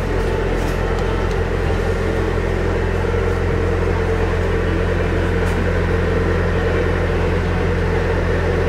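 Narrowboat engine running steadily under way, a constant low drone with a hum of several fixed pitches.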